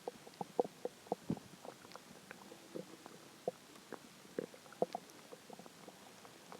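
Hungry human stomach growling: a quick, uneven run of short gurgling pops and blips, more than a dozen of them, the sign of an empty stomach.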